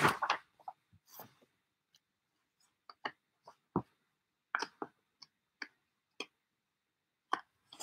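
Pages of 1940s LIFE magazines being handled and turned: about a dozen short, soft paper rustles and light taps, spread unevenly with gaps between.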